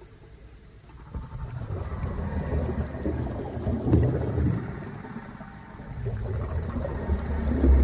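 Low rumbling wash of underwater ocean noise, without clear calls: it swells about a second in, eases off around the middle, and swells again near the end.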